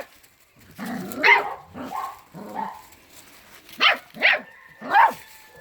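A dog barking several times at uneven intervals, with a quick cluster of sharp barks near the end.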